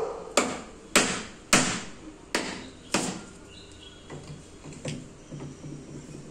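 Terracotta flowerpot being struck with a hand tool and cracking apart: five sharp knocks in the first three seconds, roughly half a second apart, then a few lighter knocks as the broken pieces are moved.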